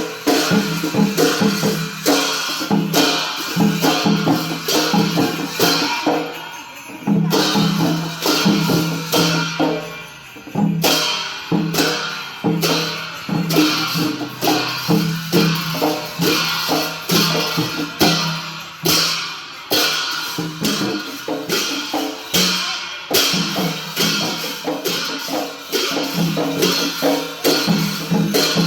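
Traditional Newar dance percussion: fast, continuous drum strokes under ringing, clashing hand cymbals, with two brief breaks about seven and ten seconds in.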